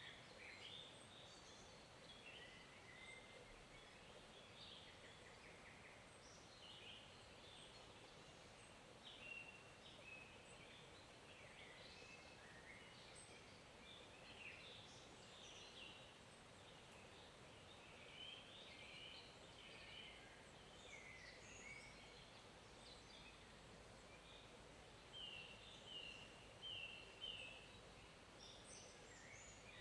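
Faint forest ambience: small songbirds chirping and calling on and off, with a run of four short repeated notes near the end, over a soft steady hiss of a flowing stream.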